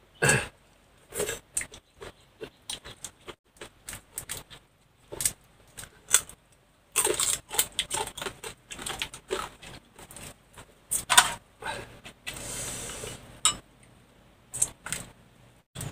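Cooked stone crab shells cracking and crunching while being eaten, with chopsticks clicking against a metal wok: a long run of short, irregular clicks and crunches.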